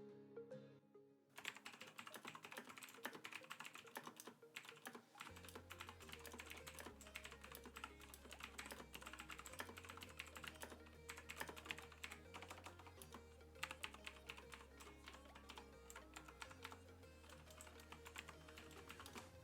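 Razer BlackWidow Chroma mechanical keyboard being typed on fast, a dense run of clicky keystrokes starting about a second in, faint under background music.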